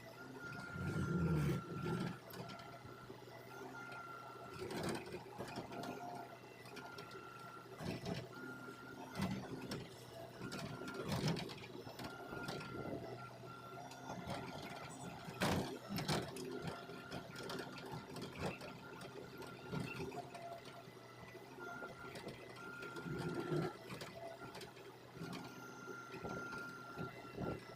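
Hitachi Zaxis hydraulic excavator at work: the machine runs steadily with a high whine that comes and goes, and scattered knocks and scrapes throughout, the loudest a sharp knock about halfway through.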